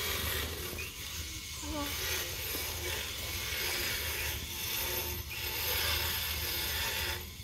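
Motorized equine dental float grinding a horse's teeth, a steady mechanical rasping whir that eases off briefly a few times. The float is filing off the sharp points that grow on the teeth.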